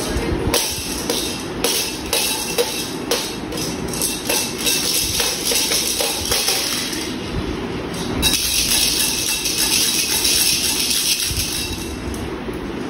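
Plastic stacking-toy pieces clacking and knocking irregularly as a toddler handles them, over background music.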